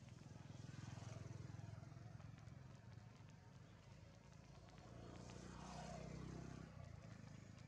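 Faint low engine hum of a passing motor vehicle, swelling twice, about a second in and again around five to six seconds in, the second time falling in pitch as it goes by.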